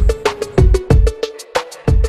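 Background music: a fast electronic beat with deep kick drums and sharp clicking percussion over a held mid-pitched tone.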